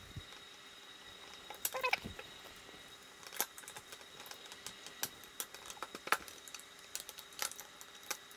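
Scattered small clicks and taps of plastic and metal parts as a goto motor unit is slotted onto an EQ5 equatorial mount's right ascension axis and worked into place by hand. About two seconds in there is a brief pitched squeak among a quick run of clicks.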